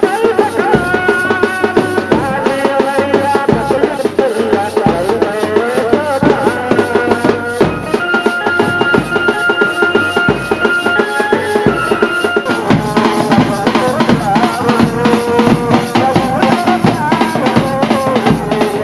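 Music with a steady drum beat under melodic instruments.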